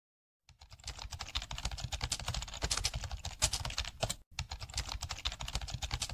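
Rapid, irregular typing clicks on a computer keyboard. They start about half a second in and break off briefly just after four seconds.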